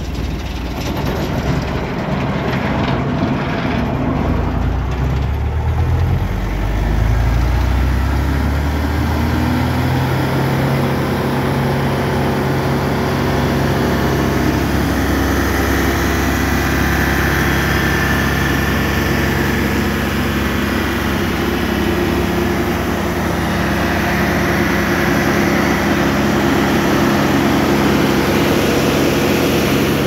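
Vermeer BC1000XL wood chipper's engine running. It speeds up between about four and ten seconds in, then runs steadily at the higher speed.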